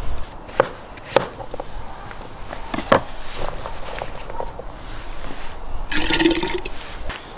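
A kitchen knife knocking on a wooden cutting board a few times as a peeled potato is cut into cubes. About six seconds in comes a short rattling clatter as the potato cubes are dropped into a pot.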